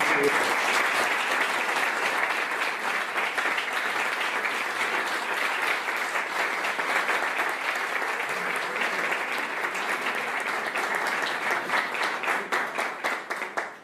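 Audience applauding: dense clapping that starts as the speech ends, breaks into more distinct individual claps over the last few seconds, and cuts off suddenly.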